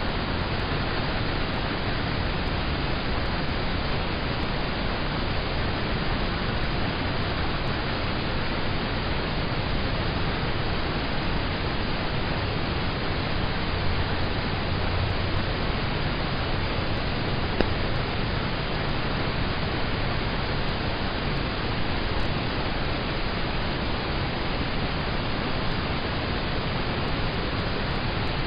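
Rain falling steadily on a car, heard from inside the cabin as a constant dense hiss with a few faint individual drop ticks.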